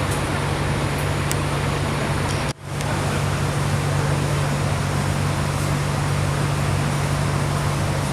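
Steady vehicle noise, road and engine, with a constant low hum. It cuts out briefly about two and a half seconds in.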